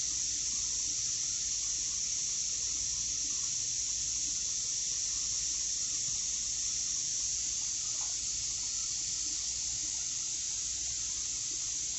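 Steady, high-pitched hiss of background noise that does not change; the light scraping of the rod in the o-ring housing cannot be picked out of it.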